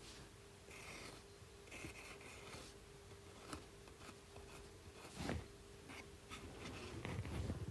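Faint scratching and rubbing of a tool drawing decoration onto a clay pot, with a few light knocks, the loudest about five seconds in, over a faint steady hum.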